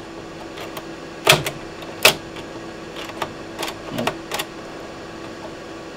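Sony MP-F52W-30 3.5-inch floppy drive clicking: about half a dozen sharp, separate mechanical clicks over a steady low hum. They come as the drive's disk-loading mechanism, which has been sticking, is worked by hand.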